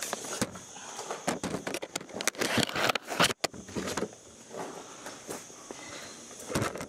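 Irregular crunching and rustling footsteps over rough ground, with a brief pause a little past the middle.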